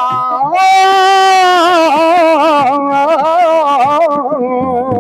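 An elderly man sings a Punjabi devotional song solo. After a brief breath he swells into a long held note that wavers with heavy vibrato, then moves through ornamented turns on lower notes.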